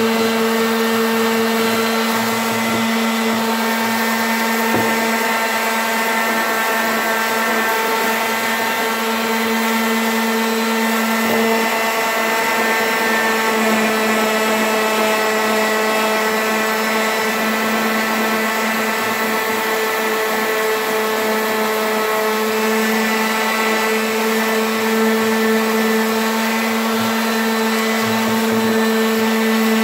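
Ryobi random-orbit palm sander running steadily on a steel double-bit axe head, sanding the blue paint off. A constant motor hum that holds one pitch throughout.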